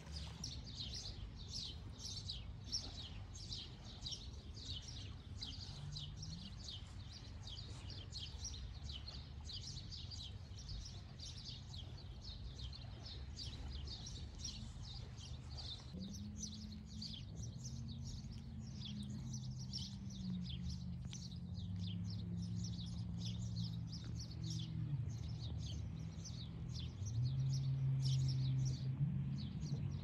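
Small birds chirping continuously in quick, high, falling notes. About halfway through, a low droning hum that shifts in pitch comes in and grows louder near the end.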